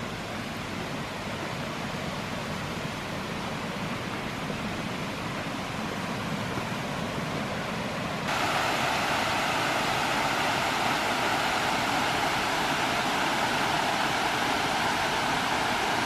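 Water of a rocky stream rushing over stones and small rapids, a steady noisy rush. About halfway through it jumps suddenly louder and brighter, as if nearer the rapids.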